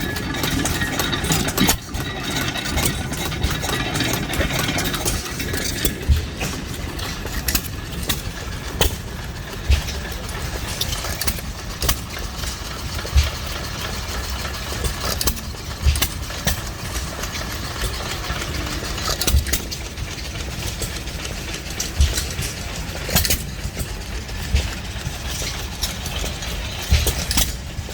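Antique hit-and-miss stationary engine running: it fires with a sharp bang every one to three seconds at uneven gaps and coasts between firings. A steady engine hum sits underneath.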